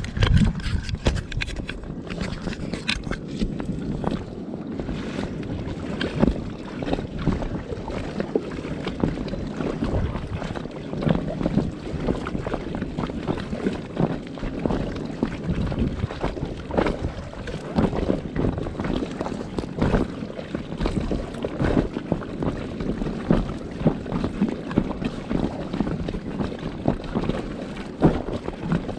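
Wind buffeting the microphone over water noise on a kayak outing, with frequent short irregular gusts.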